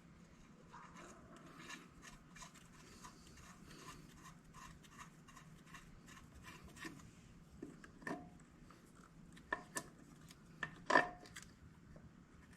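Hand tools working on metal: light rubbing with small clicks, about two a second, then a few sharper metallic knocks, the loudest near the end.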